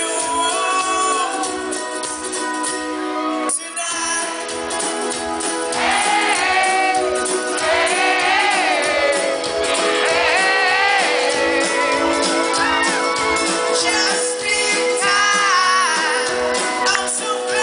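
A live pop-rock band plays a strummed ukulele-led song through the PA. The band drops out briefly about three and a half seconds in, and a male lead voice sings over it from about six seconds in.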